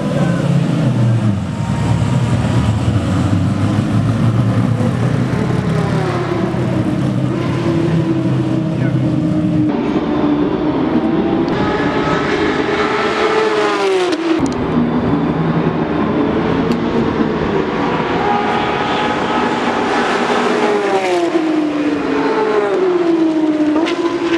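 Race car engines on a circuit. First comes a deep, heavy engine rumble as a car pulls away. After an abrupt change about ten seconds in, a high-revving engine climbs and falls in pitch through its gears, with a sharp drop in pitch about fourteen seconds in as a car passes.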